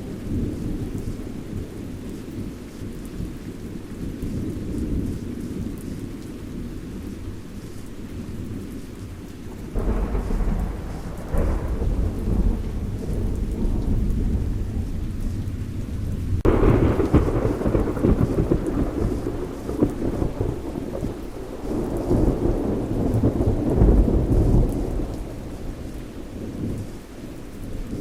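Thunderstorm: steady rain with continuous low thunder rumbling. A sharp thunderclap comes about ten seconds in, and another at about sixteen seconds that rolls on into a long rumble swelling again near the end.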